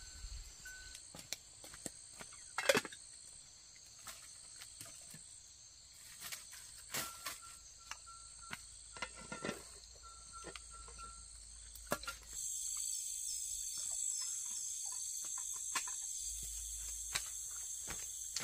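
Chorus of insects, a steady high shrill, with scattered light knocks and clatter from tending a wood cooking fire and its pot, the sharpest knock about three seconds in. About twelve seconds in the insect chorus becomes louder and denser.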